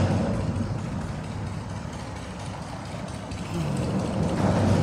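Road traffic rumbling steadily on the bridge, engines humming low with tyre hiss; another vehicle passes louder about four seconds in.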